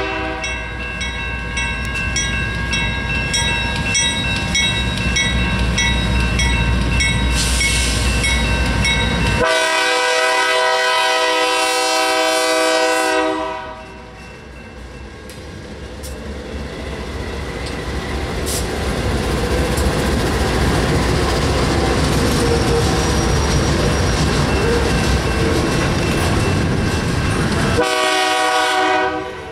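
BNSF GE Dash 9-44CW locomotives leading a loaded rail train past a grade crossing, the lead unit's Nathan K3LA air horn sounding for the first dozen seconds or so. The horn gives way to the rising rumble of the passing locomotives and the clatter of wheels over the rails. The horn sounds again near the end.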